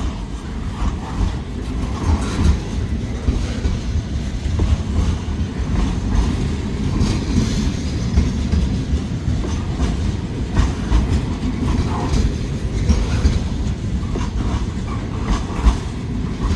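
Loaded freight cars rolling past at close range: a steady low rumble of steel wheels on rail, with irregular clacks as the wheels cross rail joints.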